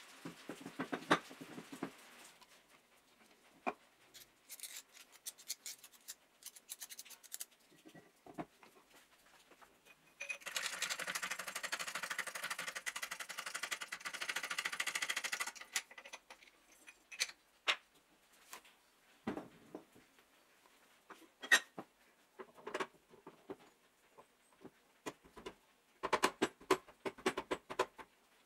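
Metal saw parts being handled and fitted by hand on a wooden bench: scattered clicks, taps and knocks of metal on metal and wood. For about five seconds in the middle there is a steady rushing noise.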